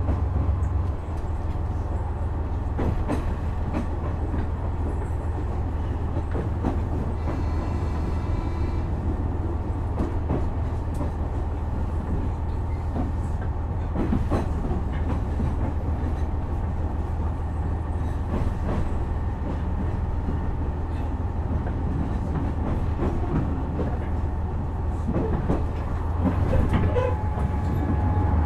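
Cabin running sound of a KiHa 126 series diesel railcar: a steady low diesel engine hum with rail-joint clicks from the wheels. The engine note drops about a second in and builds up again near the end as the power is eased off and reapplied.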